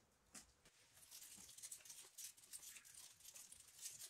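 Dry curled wood shavings from gouge carving falling and settling onto a pile: a light, dense crackling patter of many small curls, beginning about a second in, with a single sharper click just before it.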